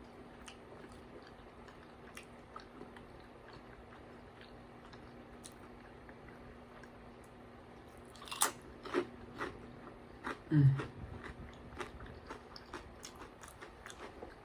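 A person biting into crunchy food close to the microphone: a loud crunch about eight seconds in, a few more crunches, then a steady run of small chewing crunches. A brief low hum from the eater comes near ten seconds.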